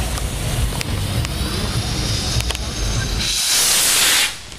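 Firework fountain spraying sparks with a steady hiss that swells into a loud rush about three seconds in, then cuts off just before the end. A few sharp pops sound earlier.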